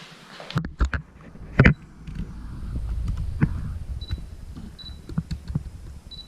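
Handling noise from a handheld camera: several sharp knocks and clicks over a low rumble, the loudest about a second and a half in, then three brief high beeps in the second half.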